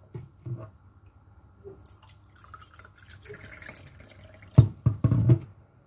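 Water trickling and dripping as a measuring glass is refilled, with a few louder splashes and clunks about four and a half to five and a half seconds in.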